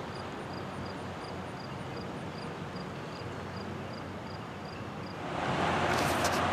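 Diesel locomotive engine running steadily at a distance, a low even hum. A louder rushing noise builds in about five seconds in.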